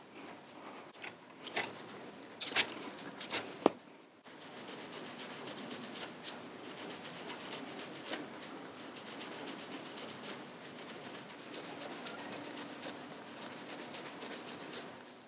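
A few sharp clicks and scrapes of hand work on a motorcycle fork leg, then, from about four seconds in, a hand-held pad rubbing quickly back and forth over the top of the fork slider.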